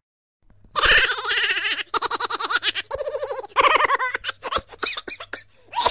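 High-pitched laughter in quick rhythmic pulses that starts about a second in, then breaks into short choppy bursts near the end.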